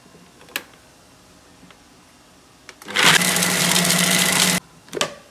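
Ninja food processor motor running in one short pulse of under two seconds, with a steady low hum, chopping raw meat into mince, then cutting off suddenly. A click comes about half a second in as the lid is fitted, and more clicks follow near the end.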